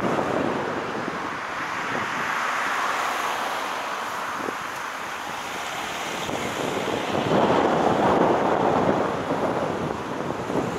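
Steady road and wind noise from a car driving along a street, picked up by its dashcam, swelling louder about seven seconds in.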